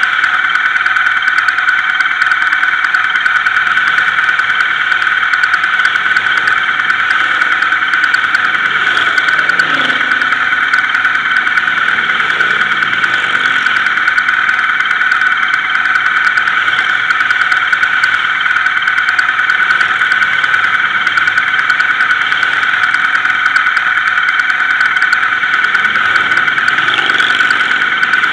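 A loud, steady high-pitched whine that never changes in pitch, with motorcycles passing faintly underneath, their engine note rising and falling about ten seconds in and again near the end.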